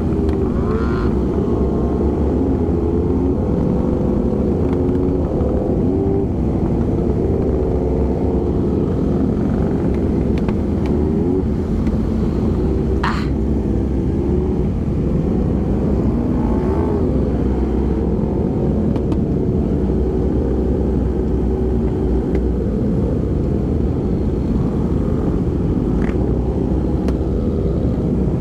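Several motorcycle engines running at parade pace. Their pitches rise and fall over a steady low rumble, with one sharp click about halfway through.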